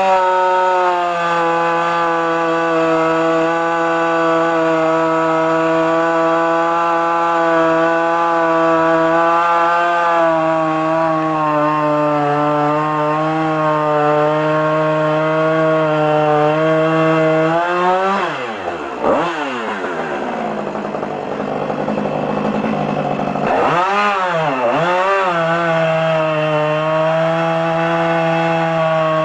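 Husqvarna 555 single-cylinder two-stroke chainsaw running at high, steady revs. About two-thirds of the way through, the revs drop sharply and recover several times, with a rougher, noisier stretch between, before settling back to steady high revs.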